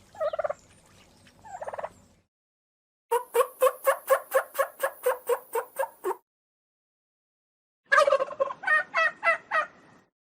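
Turkey gobbling: two short gobbles in the first two seconds, then a long rapid rattling gobble of about fourteen quick pulses, and a shorter one near the end, with silent gaps between them.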